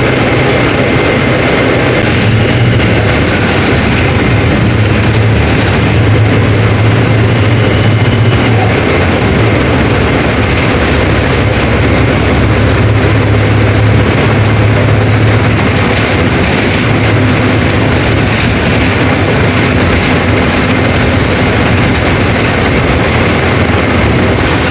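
Mercedes-Benz OF 1721 BlueTec 5 bus engine running under way, a steady loud rumble mixed with road and body rattle, the engine note rising and falling slightly.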